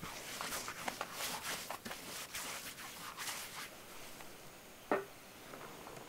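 Large sheets of traditional Korean window paper (changhoji) rustling and crinkling as they are handled, a dense run of soft crackles that thins out after about four seconds. A single sharp knock just before the end.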